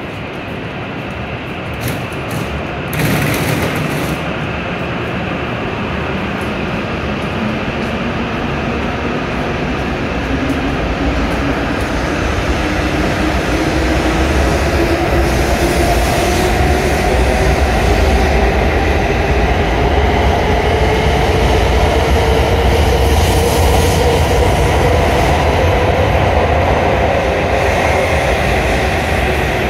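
W7 series shinkansen pulling out of the platform and gathering speed: the traction motors give a whine that rises slowly in pitch over a growing rumble of wheels on rail. There is a brief thump about three seconds in.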